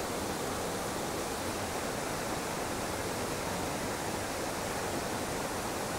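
Steady rush of a small mountain trout stream running over rocks and little cascades, an even hiss with nothing standing out from it.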